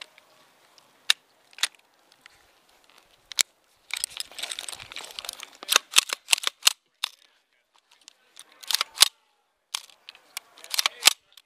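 Sharp metallic clicks and clacks from a KWA LM4 gas blowback airsoft rifle being put back together and cycled, coming singly and in quick clusters, with about a second of rustling hiss a few seconds in. The action does not sound healthy.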